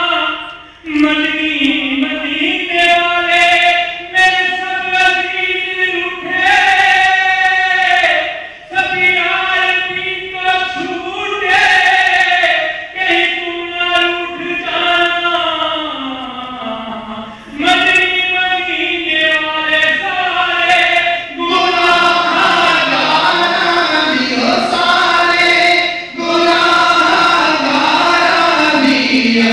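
A group of men's voices chanting a devotional chant together, with long held notes that slide up and down. About two-thirds of the way through, the sound thickens into a fuller chorus.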